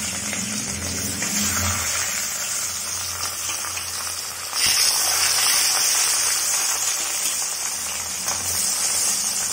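Fish pieces frying in hot oil in a wok, a steady sizzle that grows suddenly louder about four and a half seconds in.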